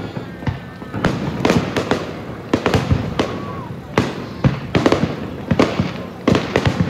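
Aerial fireworks shells bursting in a quick run of sharp bangs, over a dozen in a few seconds and at times several within a second.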